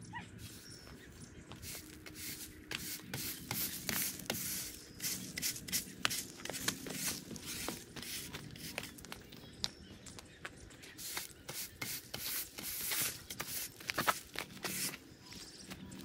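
Push broom bristles scraping across interlocking brick pavers in short, irregular strokes, sweeping up dirt and debris.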